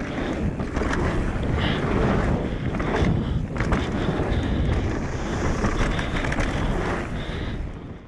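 Wind rushing over the microphone and an e-mountain bike's tyres rolling fast down a dirt flow trail, with frequent small knocks and rattles from the bike; it dies down near the end.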